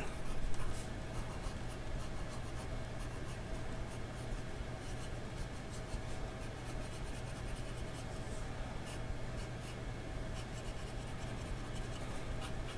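Fountain pen with a 1.1 mm nib writing on ruled notebook paper: faint scratching of the nib across the page as letters are written and a small ink swatch is filled in, over a steady low hum.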